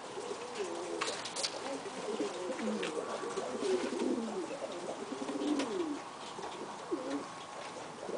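Domestic pigeons cooing, several low, rolling coos overlapping one another, with a few sharp clicks in the first few seconds.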